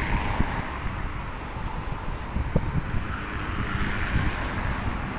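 Sea surf washing on the beach with wind rumbling on the microphone.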